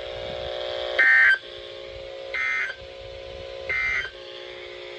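Three short bursts of warbling digital data tones, about 1.3 s apart, from a NOAA Weather Radio broadcast: the SAME end-of-message code sent after a warning. A steady humming tone runs underneath.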